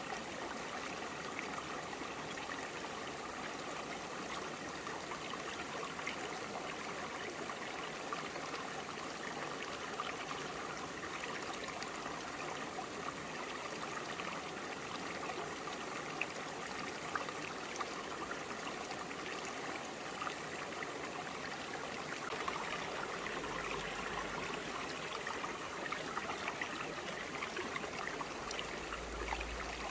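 Small forest stream flowing over broad, flat rocks: a steady babble of running and trickling water.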